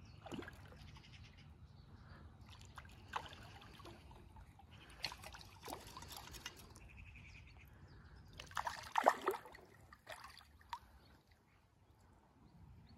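Faint, scattered splashes and sloshing of water as a large hooked trout is played close in at the surface and an angler wades in the shallows. The loudest splash comes about nine seconds in.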